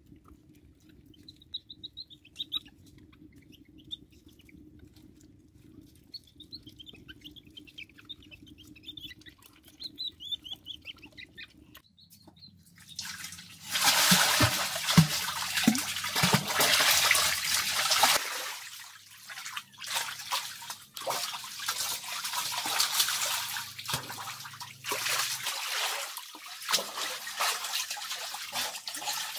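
Faint high squeaky chirps, repeated in short clusters for about the first twelve seconds. Then pool water splashing and sloshing as someone swims, loud and continuous, with uneven surges.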